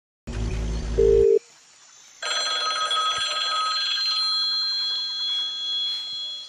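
A phone ringtone sound effect, several steady high tones ringing on from about two seconds in and fading near the end, after a short, loud, low-pitched hit at the very start.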